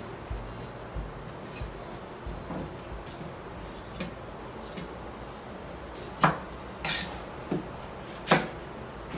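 Kitchen handling noises: a scattering of sharp knocks and clinks, likely utensils and containers being picked up and set down while preparing a dish. The two loudest come about six and eight and a half seconds in.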